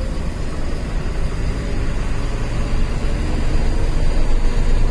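Diesel engine of a BharatBenz truck running under load as the truck pulls away slowly, heard from inside the cab as a steady low engine noise that grows a little louder near the end.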